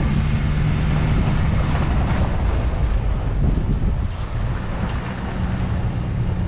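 Off-road SUV engine running steadily while driving slowly on a dirt track, with tyre and wind noise over it; the engine note shifts a little near the end.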